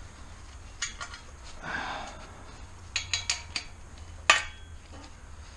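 Metal hand tools clinking against metal while the exhaust header is being unbolted: a few separate sharp clinks, a cluster of three near the middle and the loudest, briefly ringing one just after.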